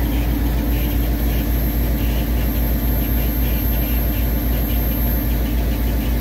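An EMD 16-645E sixteen-cylinder diesel prime mover in an EMD SD38-2 locomotive, idling steadily with a deep, even running sound.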